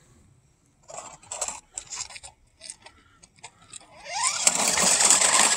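Battery-powered RC monster truck crunching over landscaping rocks in short scattered clatters. About four seconds in, its electric motor and drive start running hard with a brief rising whine, a loud steady noise as it climbs out onto the pavement.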